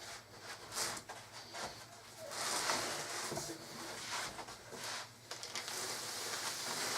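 Soft rustling and light scraping of cardboard as a jigsaw puzzle is slid across onto a table, with a few small clicks; the rustle fills out from about two seconds in.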